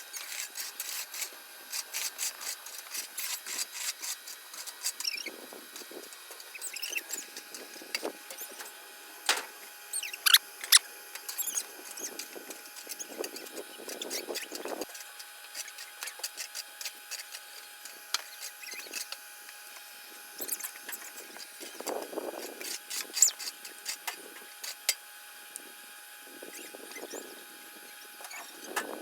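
Twigs and small branches being handled, snapped and stacked: many short sharp cracks and clicks, with brief rustles of leaves and brush. A faint steady high tone runs underneath.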